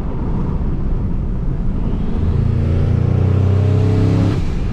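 Turbocharged Ford F-150 pickup accelerating, heard from inside the cab. Road noise and engine rumble at first, then about two seconds in the engine note swells and climbs slowly in pitch under load, and cuts off suddenly near the end.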